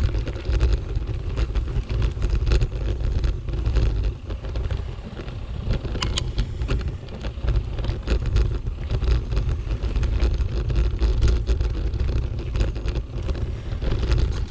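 Bicycle rolling over a forest dirt path, with wind buffeting the microphone in an uneven low rumble and frequent small clicks and rattles from the bumps.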